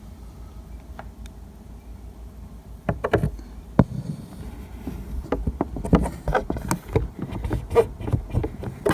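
Hands handling a plastic toy RC car: an irregular run of sharp clicks and knocks starting about three seconds in, over a low steady hum.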